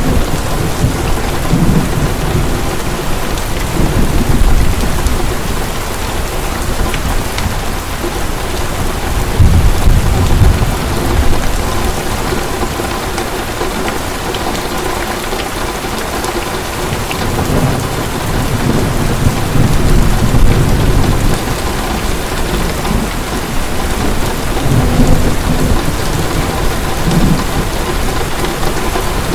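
Heavy rain falling in a steady hiss, with rolling thunder rumbling low several times, loudest about ten seconds in and again for several seconds near the middle and end.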